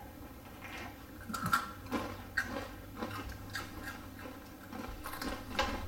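Crunching and chewing of hard, crunchy spicy corn snacks: Flamin' Hot Cheetos and Takis. About a dozen short, irregular crisp crunches.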